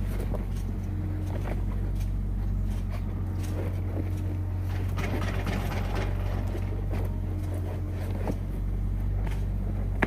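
An engine of construction machinery running steadily as a low drone, with scattered knocks and clatter over it.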